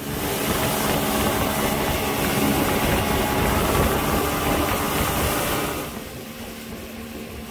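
Motorboat engine running at speed, its drone mixed with rushing water and wind noise; it falls away sharply about six seconds in as the boat slows.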